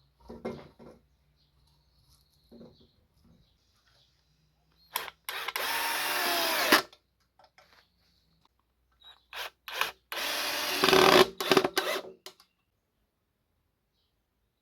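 Handheld power tool motor run in two bursts of about two seconds, each started with a few short trigger blips. The motor winds down in pitch as each burst is released. Light knocks come near the start.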